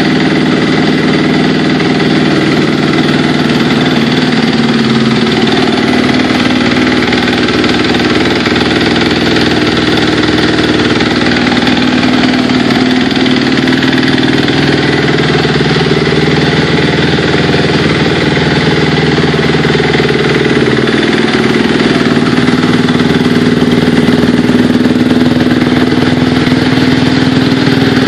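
Honda CRF250R dirt bike's single-cylinder four-stroke engine idling steadily on the stand. Around the middle, the idle sags slightly and picks back up.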